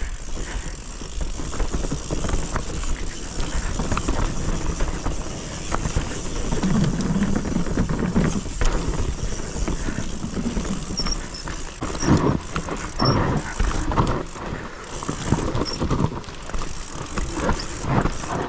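Mountain bike riding down a steep dirt trail: tyre noise with frequent knocks and rattles as the bike goes over bumps, heavier from about two thirds of the way in, over a steady rumble of wind on the microphone.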